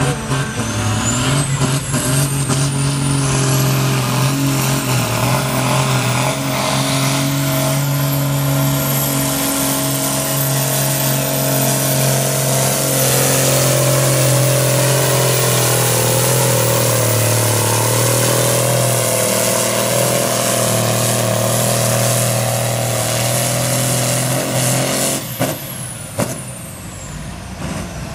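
Farm tractor's diesel engine running at full throttle under heavy load, dragging a tractor-pulling sled, with a high whine rising over the first few seconds. Near the end the engine is throttled back as the pull ends and the whine falls away.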